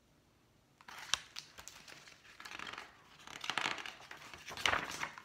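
Paper pages of a picture book rustling and scraping as the book is handled, starting about a second in, with a couple of sharp ticks among the rustling.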